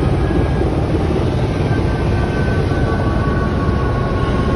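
Steady low rumble of a running vehicle, with faint steady high tones above it.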